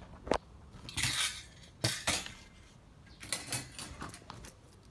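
Metal pieces of a shashlik picnic set (steel skewers, forks, tray, metal shot cups) clinking and knocking in their case as it is handled: a handful of sharp clinks spread through, with a short rattle about a second in.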